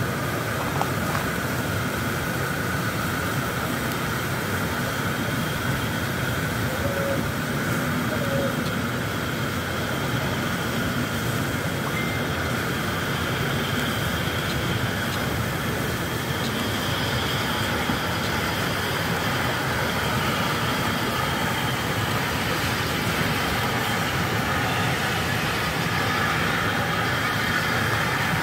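Steam locomotive at a distance, moving slowly, heard as a steady hiss of steam without distinct exhaust beats.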